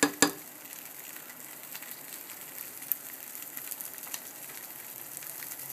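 Slices of liverwurst sizzling in a frying pan: a steady hiss with a few small pops, and a sharp click just at the start.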